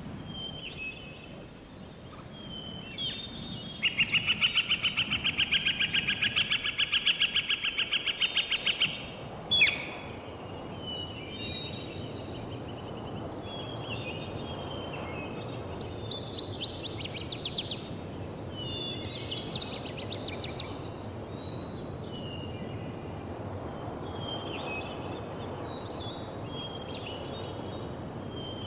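Wild birds calling over steady outdoor ambience: short chirps repeat throughout, and a loud, rapid pulsed trill runs for about five seconds, ending in a sharp click. Two shorter rapid trills follow midway through.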